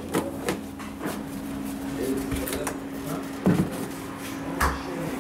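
Knocks and clatter of a plastic tub being handled and an under-counter fridge door being pulled open, with a sharp knock about three and a half seconds in and another about a second later. A steady low hum runs underneath.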